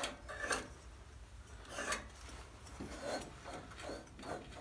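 Flywheel of a Briggs & Stratton V-twin engine turned by hand with the spark plugs out, giving a string of short, irregular rasping scrapes: a sign that the refitted ring gear is still rubbing somewhere.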